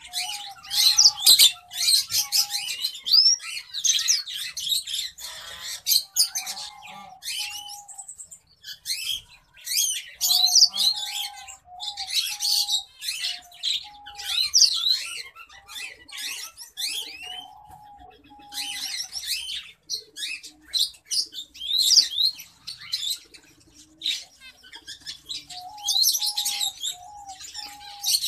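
Small birds chirping in dense, rapid high runs that pause briefly every several seconds. Underneath, a lower, level note repeats in short series.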